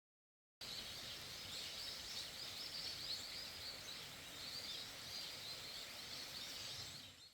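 Forest ambience: a steady hiss under a dense chorus of high chirping. It starts abruptly under a second in and fades out near the end.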